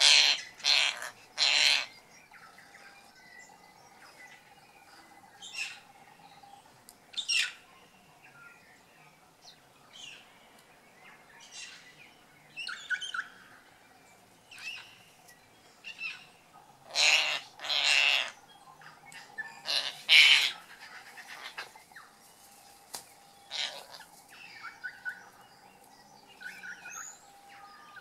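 Kākā parrot calling, with loud calls in short bursts: three at the start and three more about two-thirds through. Softer bird chirps come between them.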